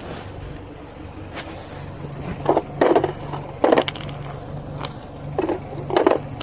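Hand tools working on a car wheel during a tire change: five short creaking strokes, irregularly spaced in the second half, over a steady low hum.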